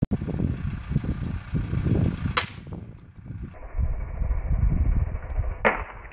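Two sharp bangs about three seconds apart, the second the louder, over uneven low rumbling.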